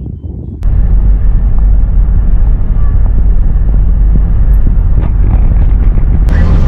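Loud, steady low rumble of a vehicle on the road, road and wind noise, cutting in abruptly about half a second in after a few faint ticks.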